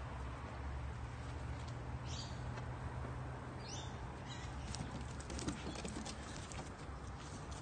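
A puppy's paws and claws pattering on timber decking as it trots and plays, a quick run of light clicks from about halfway through. Two short high chirps come earlier, over a steady low rumble.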